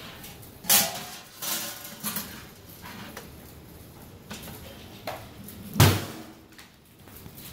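Metal baking trays and wire racks in a countertop mini oven clattering and scraping as they are slid in and out by hand. The oven's glass door is shut with a knock about six seconds in, the loudest sound.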